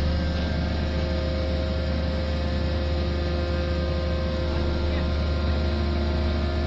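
Heavy construction machinery running steadily: a low engine drone with a few constant higher tones and no hammer blows or other impacts.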